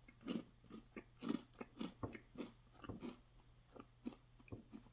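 Cheez-It crackers being chewed, a run of faint crisp crunches about two or three a second, fading toward the end as the cracker breaks down.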